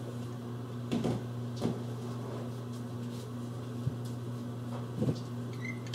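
A few light clicks and knocks of a spoon against a jar as salsa con queso is scooped out, over a steady low hum.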